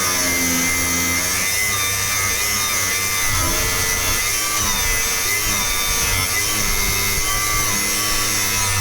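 Angle grinder with a cutting disc cutting through rusty steel exhaust pipe, running continuously, its pitch dipping and recovering as the disc bites into the metal.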